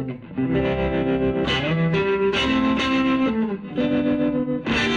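Electric guitar playing chords and short phrases with a few sliding notes, sent through a motor-driven rotating speaker cabinet for a Leslie-style swirling tremolo.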